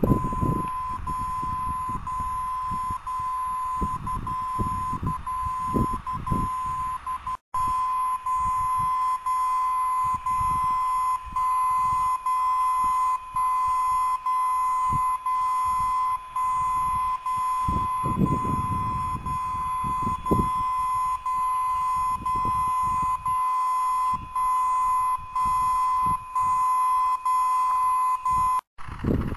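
A homebrew superheterodyne VLF/longwave pocket receiver sounding a steady 1 kHz beat tone from a received station's carrier, passed by its narrow 1 kHz audio filter. The tone dips briefly about once a second and cuts out fully twice. Low rumbling handling or wind noise comes through at the start and again about two-thirds of the way in.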